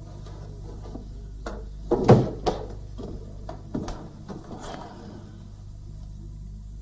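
A few knocks and clatters of objects being handled. The loudest is a double thump about two seconds in, with smaller knocks around it and again near four seconds, over a steady low hum.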